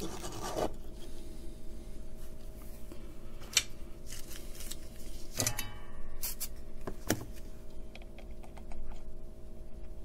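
Small handling noises as a circuit board, a capacitor and copper wire are moved and set down on a wooden bench: light scrapes and rubbing with a few sharp clicks, the clearest about five and seven seconds in, over a faint steady hum.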